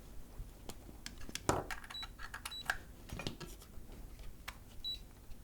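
Faint clicks and handling knocks as a test meter is set up and connected to measure current, with three short high beeps from the meter, the last near the end.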